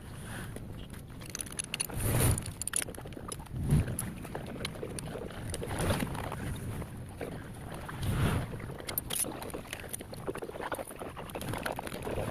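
Scattered metallic clicks and knocks of hand tools and parts being handled while a motorcycle's chain cover is opened, with a few louder knocks about 2, 4, 6 and 8 seconds in.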